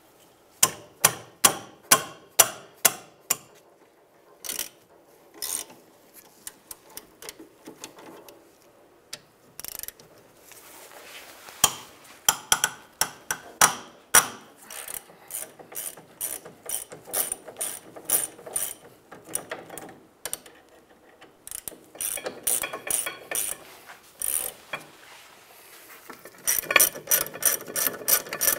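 Hand ratchet clicking as it is swung back and forth on the 14 mm caliper bracket bolts, turning them out. The clicks come in several runs of a few per second, with pauses between.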